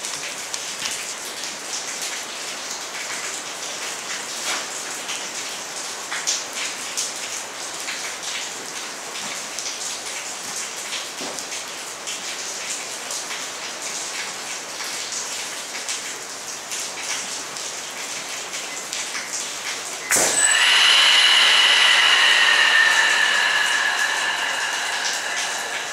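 Steady rain on hard surfaces. About 20 seconds in, a sudden loud whistling hiss starts as high-pressure air from a scuba tank rushes into the Artemis M22 PCP air rifle's reservoir, then slowly fades as the fill goes on.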